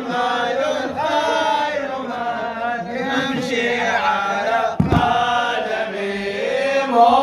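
Male reciters chanting a jalwa mawlid, a celebratory Shia devotional song in Arabic, in long melodic phrases. A brief low thump comes about five seconds in.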